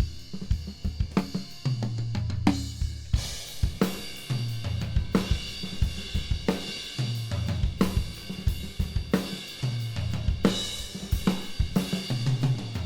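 Recorded acoustic drum kit playing a steady groove, with kick drum, snare, hi-hat and cymbal crashes. It is heard as a studio mix of close microphones blended with room microphones, with the mid-side room pair brought in during playback.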